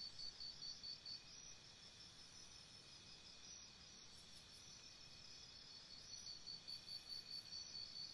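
A cricket chirping faintly in an even rhythm of about five high chirps a second; the chirping drops back about a second in and comes back stronger near the end.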